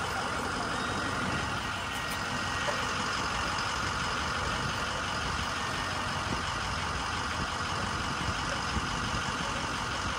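A motor engine idling steadily, with no change in pitch or level.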